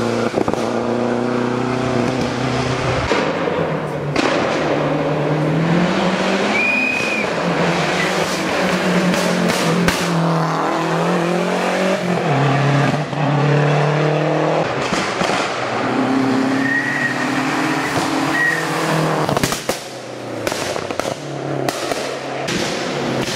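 Lancia Delta Integrale rally car's turbocharged four-cylinder engine driven hard uphill, revving up and dropping back again and again through gear changes. A run of sharp pops and cracks comes near the end.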